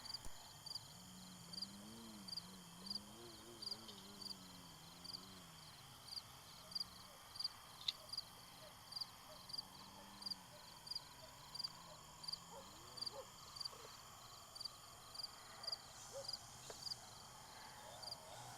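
A cricket chirping steadily, about one and a half chirps a second. Under it, the faint distant hum of an RC model plane's motor and propeller slowly rises and falls in pitch as the plane manoeuvres, then fades out about two-thirds of the way through.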